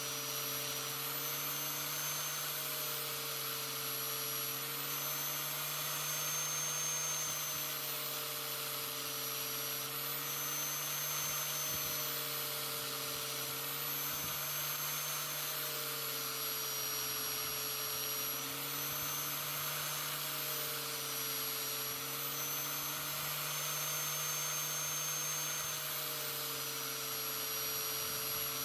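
Clamped electric angle grinder running steadily, its motor whine rising and falling slightly in pitch as a forged steel knife blade is held to the wheel to grind the bevels.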